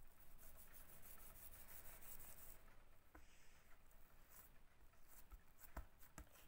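Faint rubbing and scraping of hands working pieces of çörek dough, with a few soft knocks in the second half.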